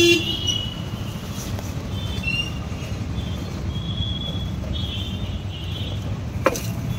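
Roadside traffic: a steady rumble of passing vehicles with a few faint, distant horns.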